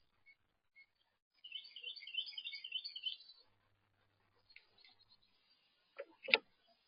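A songbird sings a short phrase of rapid, repeated high notes about a second and a half in, lasting under two seconds, with a few faint chirps around it. Near the end come two sharp knocks, the second the loudest.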